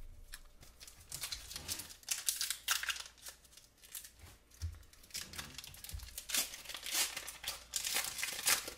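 Pokémon TCG booster pack's foil wrapper being torn open and crinkled, a long run of irregular crackles.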